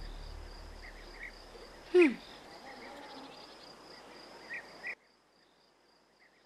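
Crickets chirring steadily, with a few faint short chirps. About two seconds in, a single short animal call falls steeply in pitch and is the loudest sound. The background drops away suddenly about five seconds in, leaving only faint chirring.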